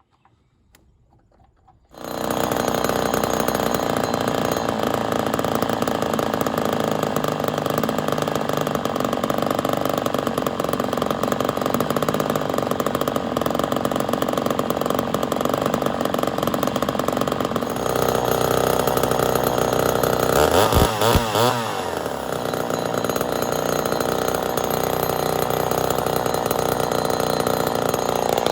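Ported Poulan 245A two-stroke chainsaw running loud and steady, starting abruptly about two seconds in after near silence. Its pitch wavers up and down briefly about two-thirds of the way through. The engine has new piston rings that are not yet seated.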